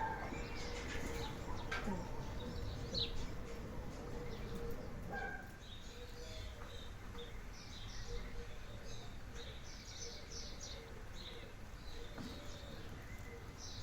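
Small birds chirping in repeated short bursts, more often in the second half, over a steady low outdoor rumble.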